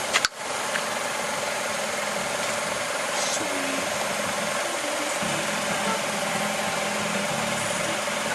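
Car engine idling steadily, with a brief click and a short dropout just after the start.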